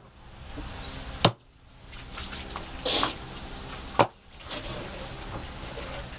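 Two sharp chops on a wooden board, about three seconds apart, with a short scrape between them.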